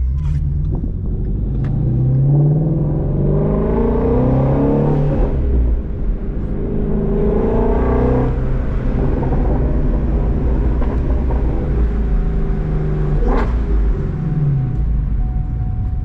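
Ford Mustang Shelby GT350's 5.2-litre flat-plane-crank Voodoo V8 revving. Its pitch climbs over about three seconds and drops back, climbs again over a second or two and drops, then runs steadier, with a brief blip past the middle and a falling rev a second later.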